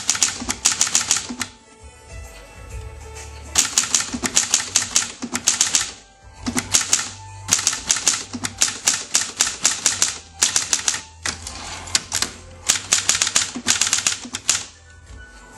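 Hermes Ambassador manual typewriter being typed on: rapid runs of sharp key and typebar strikes on the platen, broken by short pauses.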